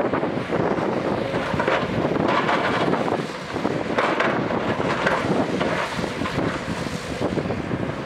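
JCB crawler excavator's diesel engine running under load with hydraulic noise as the boom lifts and swings the bucket, surging louder about two seconds in and again around the middle.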